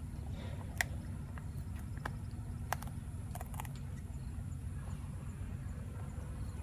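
A dog gnawing on a skin-on beef tendon chew stick, its teeth giving a handful of sharp clicks and crunches in the first few seconds, over a steady low rumble.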